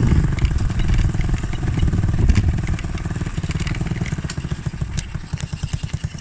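Monkey bike's small single-cylinder engine running on the move, then easing off to a slow idle in the second half, each firing stroke heard as a separate low pulse.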